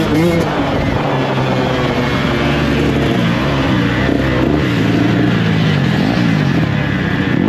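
2022 KTM 125 SX two-stroke single-cylinder engine revving under throttle while ridden, its pitch rising and falling repeatedly as the rider accelerates, shifts and backs off.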